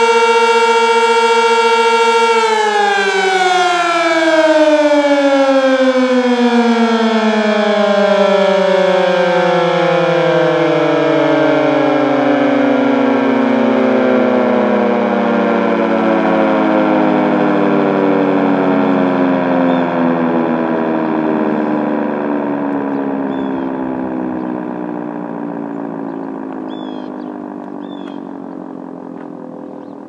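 Sentry 16V1T-B electromechanical tornado siren sounding the steady tone of its alert signal, which is released about two seconds in. The siren then winds down, its pitch falling smoothly and steadily and the sound fading toward the end.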